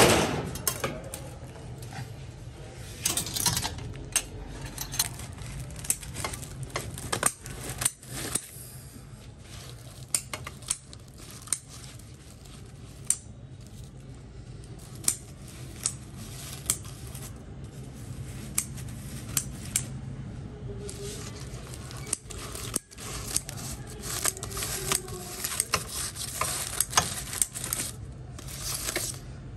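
Kitchen scissors snipping through crumpled aluminium foil, with the foil crackling and rustling as it is pulled apart, in a run of sharp irregular clicks. A loud metal clatter comes right at the start.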